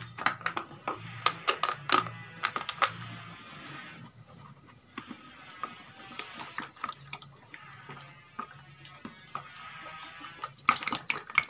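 Sharp plastic clicks and knocks as a plastic jerry can and cup are handled, then liquid organic fertilizer pouring from the jerry can into a small plastic cup, with more plastic knocks near the end. A faint steady high-pitched whine runs underneath.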